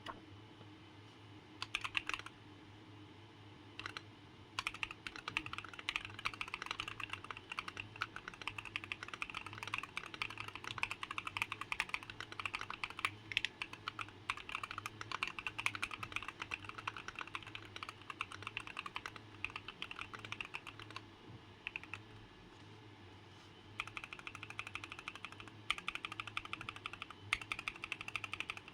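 Fast typing on a Keychron Q1 mechanical keyboard with Akko Cream Blue Pro switches, modded with a 3D-printed TPU ring between the case halves, two layers of tape and an aluminium plate. A short burst of keystrokes, then a long run of rapid typing, a pause of about two seconds near two-thirds of the way, and steady typing again. A faint steady low hum sits underneath.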